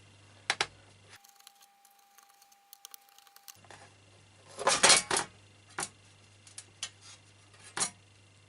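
Small metallic clicks and clinks of a screwdriver and screws as the longer bottom-case screws of a MacBook Pro are taken out. Scattered single clicks, with a louder quick cluster of clinks about halfway through.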